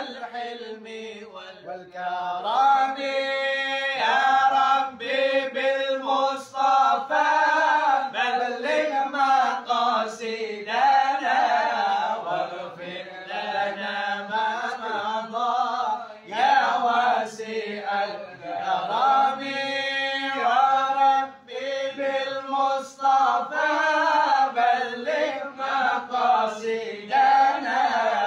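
Several men singing an Arabic sholawat together, with long held notes that waver in pitch.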